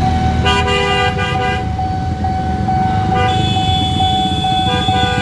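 Level-crossing warning bell ringing on one steady repeating tone over the rumble of idling road traffic. Horns sound twice: a blast about half a second in lasting about a second, and a longer one from about three seconds in.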